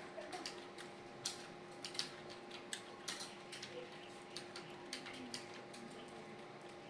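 Computer keyboard keys clicking in an uneven run, several keystrokes a second, as a student types a timed typing test.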